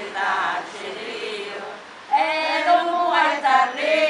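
Women's voices singing a Sicilian dialect devotional folk song (a triunfu), a slow sung line that breaks off about halfway before the next line starts.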